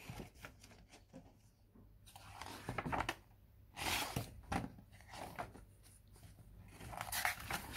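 Pages of a paper picture book being turned by hand: several soft rustles and flaps of paper.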